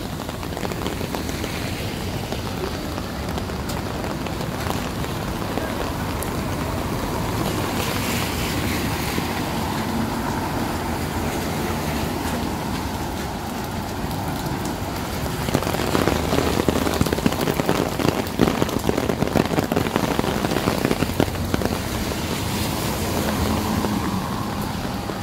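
Steady rain falling on a city street, with traffic going by on the wet road. About fifteen seconds in, the rain patter grows louder and more crackly for several seconds.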